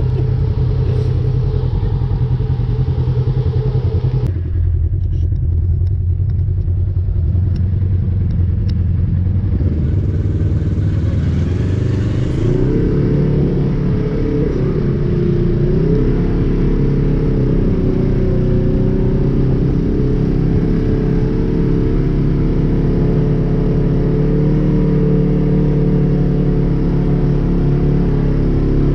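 Side-by-side UTV engine running under way on a dirt trail, heard from inside the open cab, a steady low rumble with some clatter. About four seconds in the sound changes abruptly, and around twelve to sixteen seconds in the engine pitch rises and wavers before holding steady.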